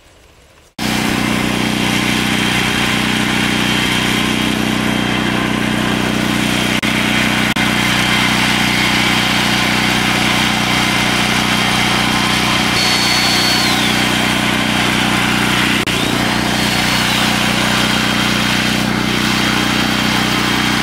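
Portable gasoline generator running steadily at a constant speed, cutting in abruptly about a second in.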